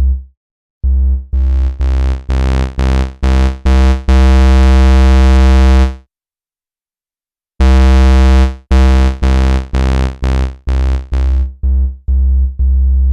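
Bass synthesizer patch in Arturia Pigments playing a run of short notes about two a second, with one held note and a pause partway through. The tone turns brighter and buzzier as the oscillator waveform is morphed from a sine toward a square wave, and softer and rounder again in the last notes.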